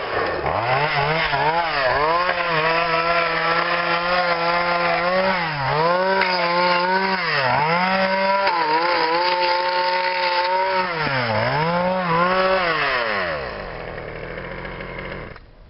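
Poulan 40cc Wild Thing two-stroke chainsaw running at high revs, its pitch dropping and climbing back again several times. About thirteen seconds in it falls to a low idle, then cuts off near the end.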